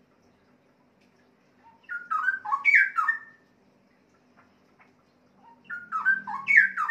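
Male straw-headed bulbul (cucak rowo) singing: two short phrases of loud whistled notes that slide up and down in pitch, one about two seconds in and another near the end.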